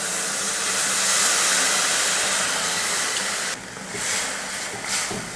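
Tamarind water pouring into hot oil and fried masala paste in a steel kadai, with a loud, steady sizzling hiss; about three and a half seconds in the hiss drops and comes back in weaker patches as the pan is stirred.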